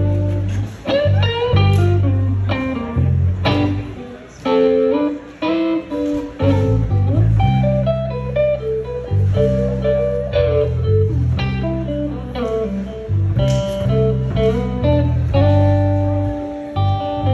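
Live blues band playing, with an electric guitar taking the lead in single-note lines with string bends over sustained bass notes and drums.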